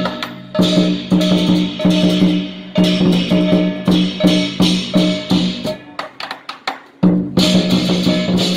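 Lion dance percussion: a large Chinese drum beaten in a steady driving pattern with clashing hand cymbals. About two-thirds of the way through it drops to lighter taps for around a second, then the full drum and cymbals crash back in.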